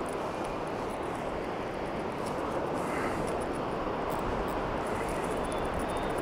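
Strong wind blowing across the microphone with surf breaking on the shore: a steady, unbroken rush of noise.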